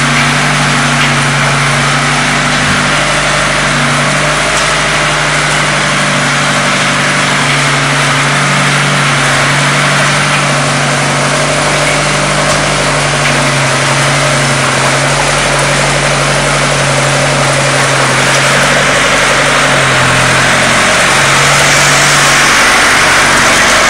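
Small tracked carrier's engine running loudly and steadily, its pitch shifting slightly now and then.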